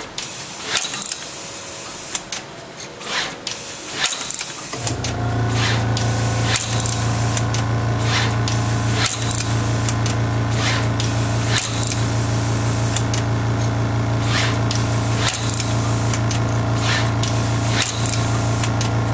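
Pick-and-place machine at work, its placement head moving and clicking irregularly as it places parts on a circuit board panel. A steady low mechanical hum starts suddenly about five seconds in and keeps on under the clicks.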